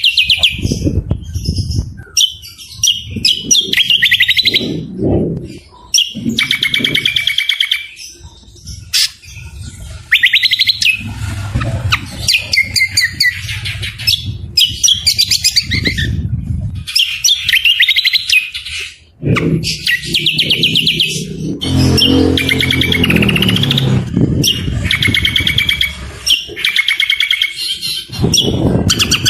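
Songbirds from a cucak kombo (greater green leafbird) training mix singing loud, rapid chattering and trilling phrases. The phrases come one after another with short gaps, over a low rumble underneath.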